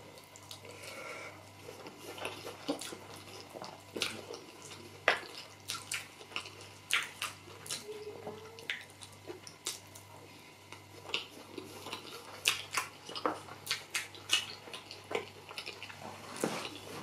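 Close-miked wet chewing and lip smacking of a person eating rice and beans porridge, a run of irregular sharp wet clicks and smacks. A faint steady low hum runs underneath.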